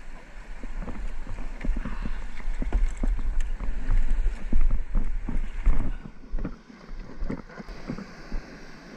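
Shore-break surf washing around a plastic fishing kayak, with water splashing against its hull and wind buffeting the microphone. The rush dies down about six seconds in.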